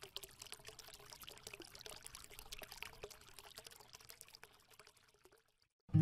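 Faint trickling, crackling sound made of dense small clicks, dying away about five seconds in.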